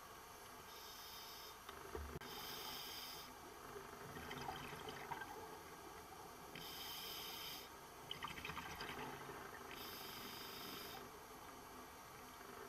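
Scuba diver breathing through a regulator underwater: a hiss with each inhalation, alternating with the bubbling gurgle of exhaled air, repeating over several breaths.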